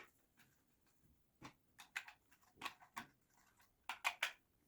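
Light plastic clicks and taps from the robot vacuum's dust-tank filter and housing being handled and fitted back together, a few louder clicks near the end.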